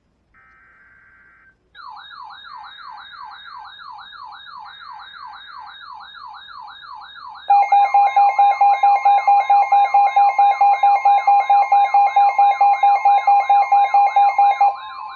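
NOAA Weather Radio alert starting: three short buzzy SAME data bursts, then a weather alert radio's warbling siren alarm at about two sweeps a second. About halfway through, a much louder rapid pulsing beep alarm joins, over the broadcast's steady 1050 Hz warning tone.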